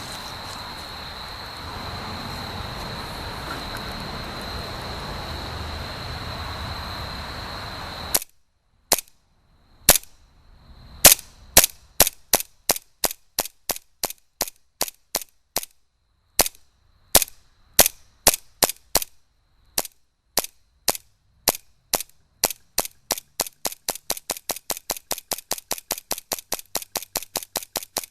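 KJ Works KP-07 1911 gas-blowback airsoft pistol, converted to run on HPA at 115 PSI, firing semi-auto: sharp cracks begin about eight seconds in, a second or so apart at first, then quicken to a steady rapid string of about four shots a second. Before the shooting there is a steady background hiss with a faint high whine.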